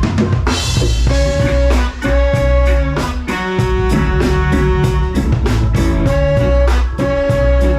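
Live reggae band playing with a three-piece horn section holding long notes over bass, drums and guitar. A cymbal crash comes about half a second in, right after a drum fill.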